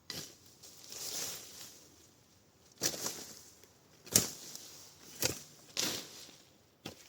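A series of uneven rustling crunches and crackles, roughly one a second, the sharpest about four seconds in.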